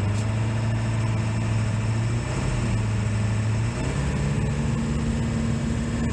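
1999 Ford E450 motorhome's engine pulling steadily in second gear, heard from inside the cab, its note stepping up in pitch about four seconds in. The 4R100 automatic is holding second, though the owner suspects an electrical fault behind its poor shifting.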